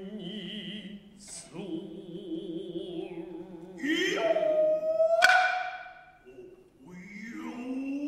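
Noh music: low chanting voices with a wavering pitch, then a vocal call that slides up and holds a high note, and a single sharp drum stroke about five seconds in, the loudest sound.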